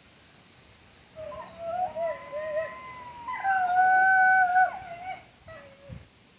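Wolves howling together: long, steady howls whose voices overlap, the loudest held for about two seconds past the middle, then a short lower howl near the end.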